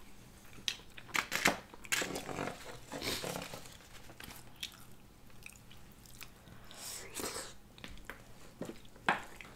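Close-miked chewing of people eating curry with rice, with scattered short clicks and smacks from mouths and spoons.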